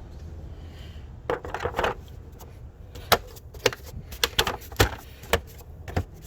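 Plastic engine cover of a Mercedes C300 W205 being handled and pressed back down onto its mounting tabs: a brief scuffle about a second in, then a string of irregular sharp knocks and clicks.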